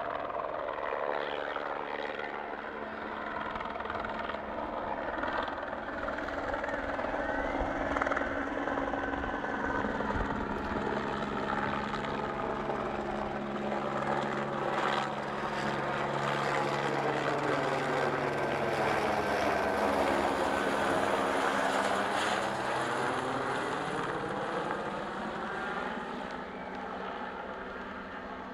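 Water-bombing helicopter with a bucket slung beneath it flying past low. Its rotor and engine sound builds to a peak about two-thirds through, with a sweeping, phasing tone as it passes, then fades away near the end.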